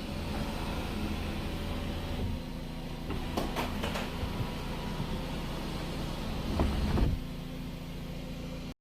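Electric motor of a Renault Samsung SM5 panoramic sunroof running steadily as the glass panel slides, with a few clicks about three and a half seconds in and a thump around seven seconds; the motor cuts off abruptly near the end.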